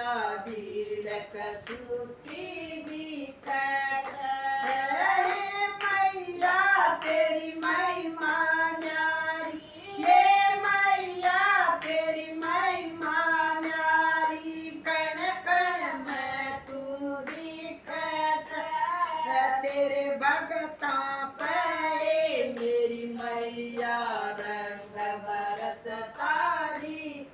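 Women singing a Hindi devotional bhajan together with no instruments, clapping their hands in time to the song.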